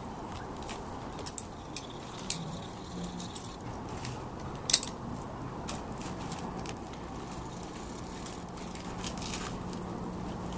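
Scattered light clicks and jingles of small metal gear being handled, with one sharper click about five seconds in, over a faint steady hum.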